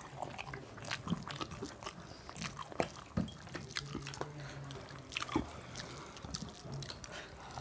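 People eating at close range: chewing, with scattered small clicks and wet smacks of food being eaten, over a faint steady low hum.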